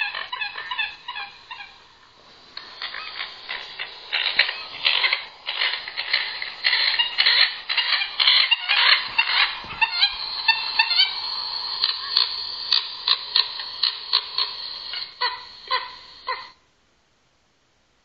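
Recorded bird calls played through a small laptop speaker: a rapid, dense series of chirps and calls, thin and tinny, which cuts off suddenly near the end.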